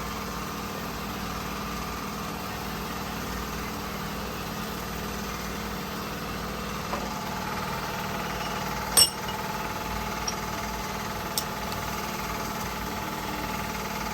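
An engine idling steadily. There is a sharp click about nine seconds in, and a smaller one a couple of seconds later.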